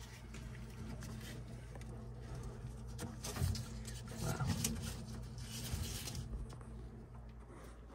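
Rubbing and scraping as a gloved hand works a manometer's rubber hose onto the pressure tap of a boiler's gas valve in a tight space. The handling noise is loudest in the middle, with a few dull knocks. A steady low hum runs underneath.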